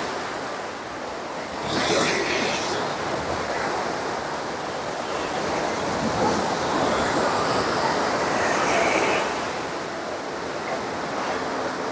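Sea waves breaking and washing up a beach, a steady surf that swells louder about two seconds in and again over several seconds past the middle.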